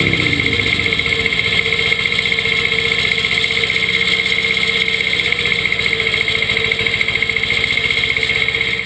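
Yanmar 2210B tractor's diesel engine running steadily while driving a PZ CM 135 drum mower through hay, with a steady high whine above the engine note.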